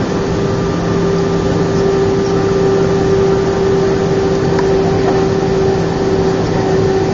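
Airbus A319 jet engines and airflow heard inside the passenger cabin: a loud, steady hum with a constant low drone.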